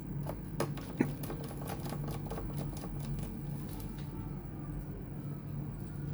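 A quick run of light clicks and taps, with one sharper click about a second in, thinning out after about four seconds, over a steady low hum.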